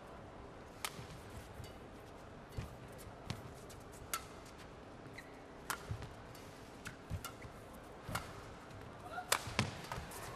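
Badminton rally: a dozen or so sharp smacks of rackets striking the shuttlecock at irregular intervals, mixed with the players' footwork on the court, over a low steady arena hum. The hits come closer together near the end.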